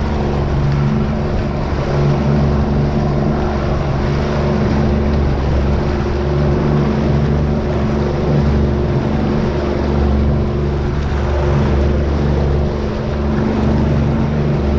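90 hp Yamaha outboard running steadily at trolling speed, a constant low drone with a broad rushing noise over it.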